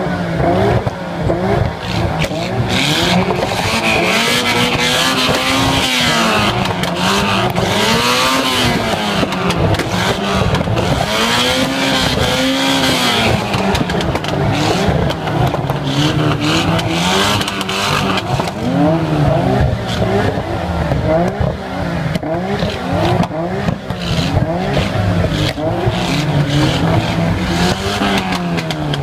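Nissan RB-series straight-six engine free-revving, its pitch rising and falling in repeated blips of a second or two each.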